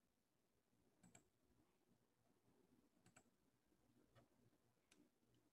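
Near silence: faint room tone with a few faint, scattered clicks of a computer mouse.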